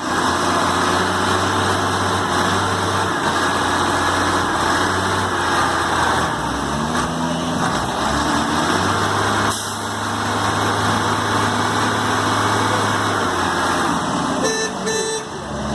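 Logging truck's engine running steadily, with a brief high-pitched tone near the end.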